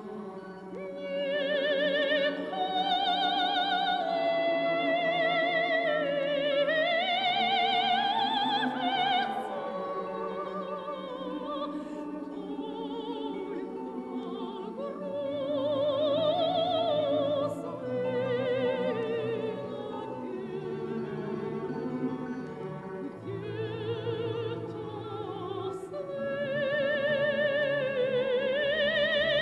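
Operatic singing: a high voice with wide vibrato holding long notes over a steady, sustained instrumental accompaniment.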